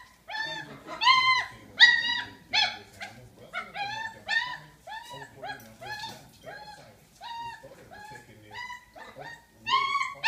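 Puppy making a rapid series of short, high-pitched whining cries, about two to three a second, each rising and falling in pitch; they get louder near the end.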